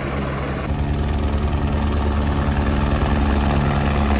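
Helicopter hovering close by, its rotor beating in a steady low pulse, which grows louder a little under a second in.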